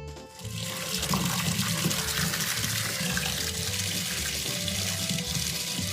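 Water running steadily, a constant rushing hiss that starts about half a second in.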